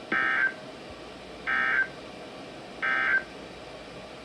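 Emergency Alert System end-of-message signal: three short bursts of SAME digital data tones, about one and a half seconds apart, marking the end of the alert. A faint steady hiss runs under them.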